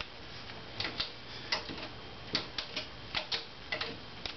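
About a dozen light, irregular clicks and ticks as a screwdriver turns the clutch adjusting screw in the center of a 1995 Harley-Davidson Heritage Softail Classic's clutch pressure plate, setting the clutch free play.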